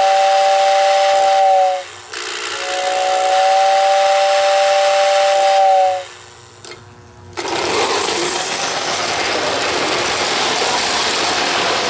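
Whistle of a postwar Lionel 6026W whistling tender blowing two long two-note blasts, the second longer. About seven seconds in, the Lionel 2055 Hudson toy steam locomotive starts off and runs on three-rail track with a steady mechanical running noise of motor, gears and wheels.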